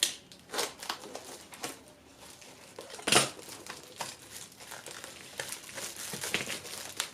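Parcel packaging crinkling and rustling as it is handled and opened by hand, in irregular short crackles, with one louder crackle about three seconds in.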